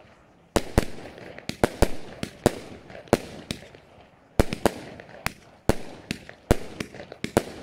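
A consumer firework battery (cake) firing: about twenty sharp bangs of launches and aerial bursts in quick, irregular succession, each trailing off briefly. There are short lulls at the start and about four seconds in.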